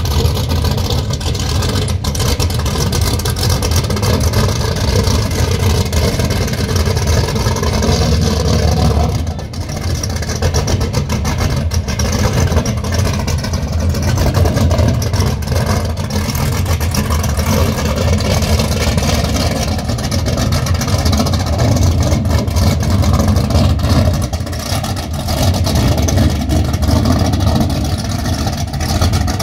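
Apache 41 powerboat's inboard engines running at low speed, a deep, steady engine sound with water churning at the stern as the boat manoeuvres slowly out of its berth.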